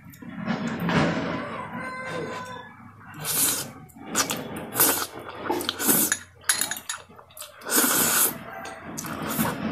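Close-miked slurping and chewing of saucy spicy instant noodles: a series of sharp, hissy slurps as forkfuls are sucked in, with wet mouth sounds between them.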